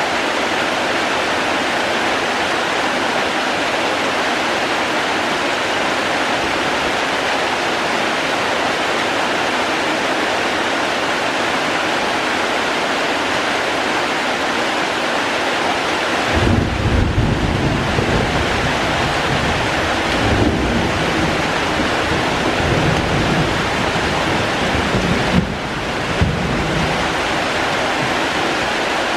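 Steady rain falling, a continuous even hiss. About halfway through, an uneven low rumble comes in for around ten seconds, with two sharp knocks near its end.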